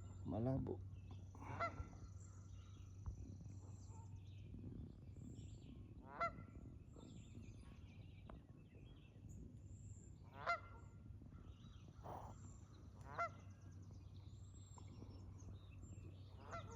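Wild geese honking faintly every few seconds, about six separate short calls, over a low steady hum.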